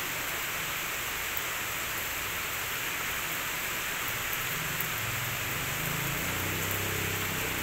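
Heavy rain falling steadily on a wet paved road and puddles.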